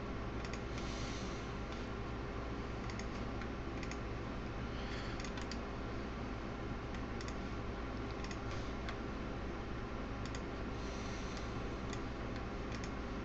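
Scattered clicking of a computer mouse and keyboard, some clicks coming in quick pairs, over a steady low hum.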